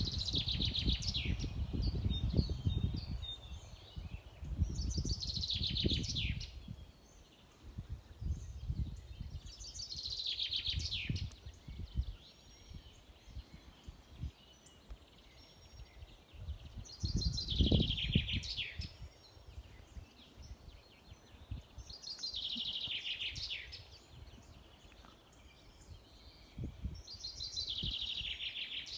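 A songbird singing the same short phrase of rapid notes falling in pitch, six times at intervals of about five seconds, over a low uneven rumble.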